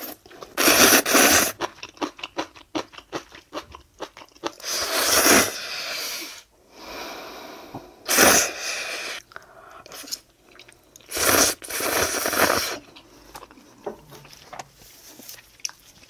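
Close-miked slurping of instant ramen noodles, about four long slurps, with wet chewing and crunching clicks between them.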